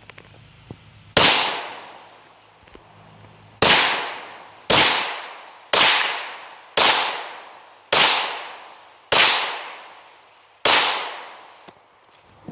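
Eight shots from an AR-15 rifle in 5.56: one about a second in, then after a pause seven more roughly a second apart. Each shot is followed by a trailing echo that dies away.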